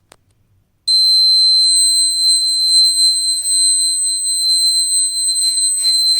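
9-volt battery buzzer sounding one steady high-pitched tone, starting about a second in. The candle has heated the tube light starter's small glass tube, closing the circuit and setting off the homemade fire alarm.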